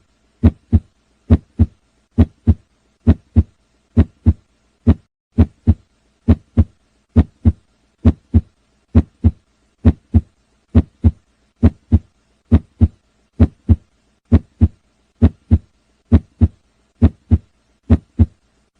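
Heartbeat: evenly paired lub-dub thumps (the first and second heart sounds), about 66 beats a minute. The rhythm breaks once, about four to five seconds in, with a longer gap and a single lone beat.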